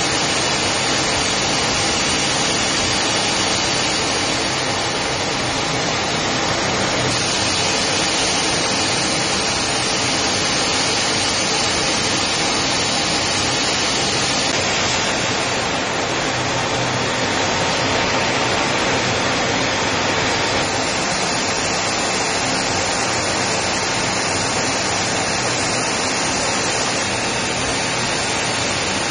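Steady jet engine and airflow noise heard inside the cockpit of a Su-30 fighter in flight: an even, unbroken hiss with no changes.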